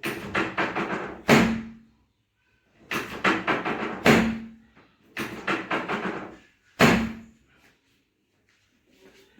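Sharp knocks and thuds during a chiropractic adjustment: three runs of quick knocks, each ending in a heavy thud with a brief low ring, about a second in, about four seconds in and near seven seconds.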